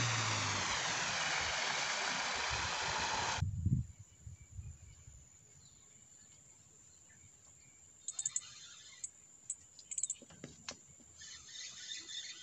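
Background music that cuts off suddenly about three and a half seconds in, followed by quiet outdoor ambience with faint, short high-pitched bird chirps from about eight seconds on and a few faint knocks.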